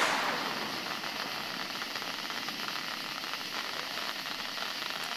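Fireworks display: a burst dies away in the first second, then a steady, faint crackling hiss runs on.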